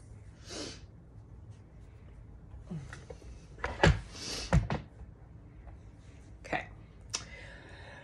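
Handling noise: a few short knocks, clicks and rustles, the two loudest thumps a little under a second apart in the middle, with a soft breath near the start.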